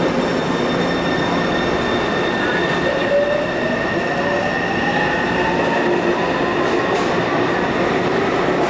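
Taipei Metro C301 train with Bombardier MITRAC IGBT traction inverters pulling away from the platform: steady electronic tones from the inverters, and from about three seconds in a motor whine that rises in pitch as the train accelerates, over wheel-on-rail noise.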